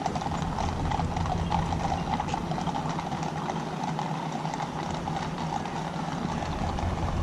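Street traffic with a pickup truck's engine running as it drives past, mixed with the clip-clop of horses' hooves on the road.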